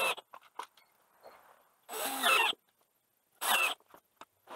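Cordless drill driving small screws into a brass hinge on a wooden box, in several short bursts of motor whine, the longest and loudest about halfway through, with light clicks between.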